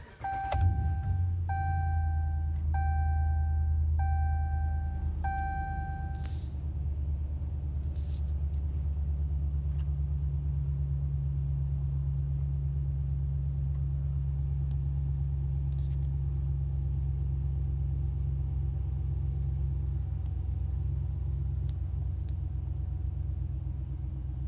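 A 2017 Ram pickup's 5.7-litre Hemi V8, fitted with a Mopar cold air intake, starts right at the beginning and then idles quietly and steadily, heard from inside the cab. It settles a little quieter after about six seconds. Over those first six seconds a dashboard chime beeps five times.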